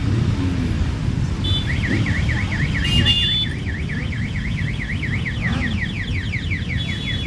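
Many motorcycle engines rumbling at low speed as a column of bikes rolls past. From about a second and a half in, a high electronic tone warbles rapidly up and down like an alarm or siren over the engines, stopping near the end.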